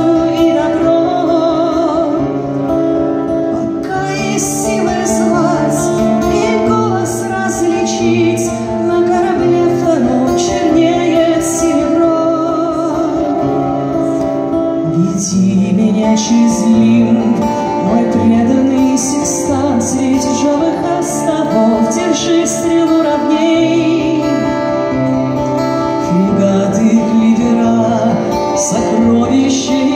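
Live folk song: a woman singing with vibrato over a plucked acoustic guitar.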